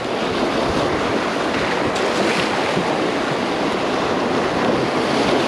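Surf washing and breaking over the rocks of a jetty: a steady rush of churning water.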